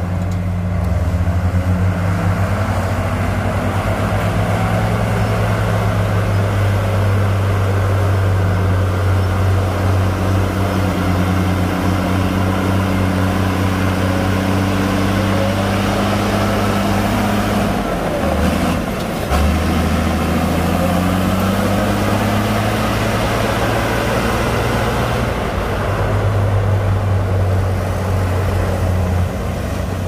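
Heavy diesel engines of a Komatsu D58P bulldozer and dump trucks running steadily under load as the dozer pushes soil. The engine note drops briefly about two-thirds of the way through, then picks up again.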